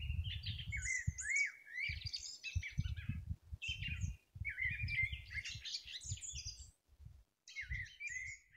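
Songbirds twittering in rapid chirps and quick rising and falling whistles, over an irregular low rumble; both break off briefly twice.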